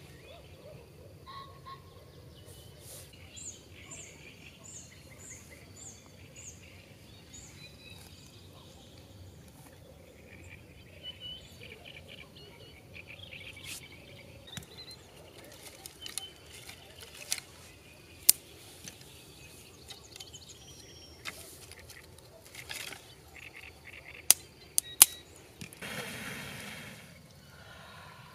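Quiet evening outdoor ambience with small birds chirping, including a quick run of about seven short high chirps a few seconds in. Later come a few sharp snaps, and near the end a long breath blown onto a campfire's embers to revive it.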